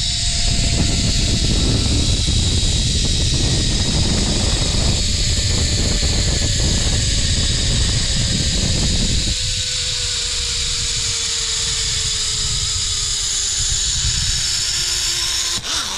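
Zipline trolley pulleys running along the steel cable: a steady high hiss with a thin whine that slowly falls in pitch as the rider nears the landing. Wind rushes on the microphone until about two-thirds of the way through, then drops away.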